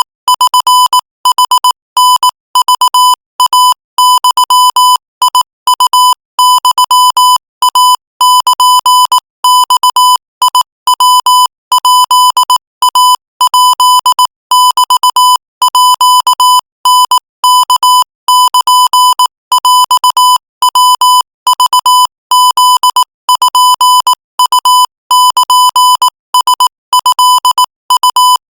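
Morse code sent at 22 words per minute as a single-pitched, buzzy beep tone, keyed on and off in quick dots and dashes with short gaps between letters and words.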